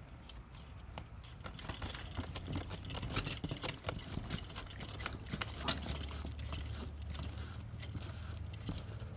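Irregular clicks, taps and knocks of hard tripod and manifold parts being handled during assembly, densest in the first half and thinning out, over a low steady hum.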